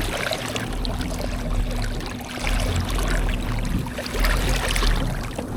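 Water sloshing and splashing against the side of a boat as a landed tarpon is held in the water to revive it, over a steady low hum.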